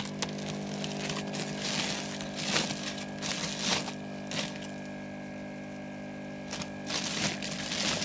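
Woven plastic sack crinkling and rustling in irregular bursts as it is pressed down into a barrel of water, over the steady hum of an air pump that aerates the water; a quieter spell falls in the middle.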